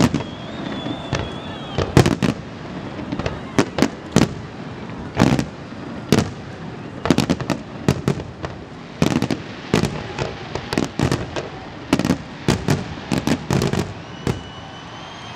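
Fireworks display: aerial shells bursting one after another in quick, irregular succession, dozens of sharp bangs that come thickest in the second half and thin out near the end.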